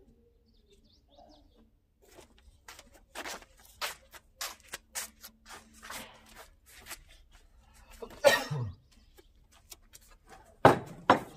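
Footsteps in sandals on a plastic outdoor mat, with scattered clinks and knocks of a teapot, glasses and a plate being handled and set down on a low wooden table. There is a louder rustling thump about eight seconds in and two sharp knocks close together near the end.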